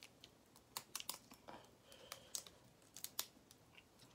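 Shell of a spicy boiled crayfish being cracked and peeled by hand: a scattering of faint, sharp clicks and crackles at irregular moments.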